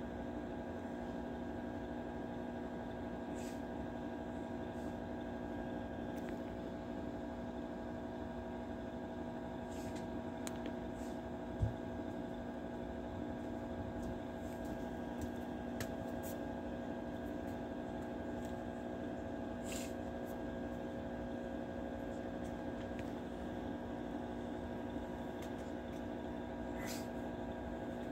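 Steady electrical hum made of several fixed tones, with a few faint clicks and one soft thump about a third of the way in.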